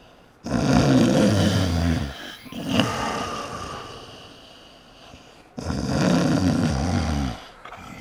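Loud snoring: two long snores about five seconds apart, with a shorter one between them.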